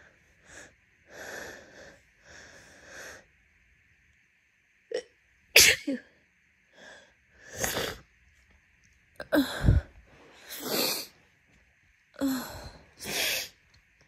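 A woman's induced sneezes: a few seconds of breathing, then several sharp, wet, messy sneezes in a row, with breaths between them. The loudest come about five and a half and nine and a half seconds in.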